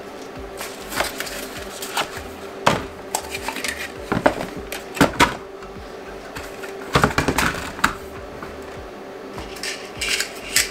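Plastic filament spools being set into a clear plastic storage tub, clicking and knocking against one another and the tub walls in a series of separate knocks.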